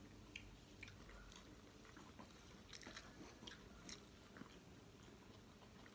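Faint chewing with scattered soft, wet mouth clicks: a person eating macarona (penne pasta) with the hand.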